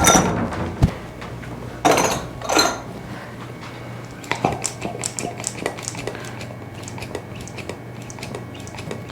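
Cupping cups being handled and applied to the skin: two short hissing rushes of air about two seconds in, then a run of light clicks and clatter.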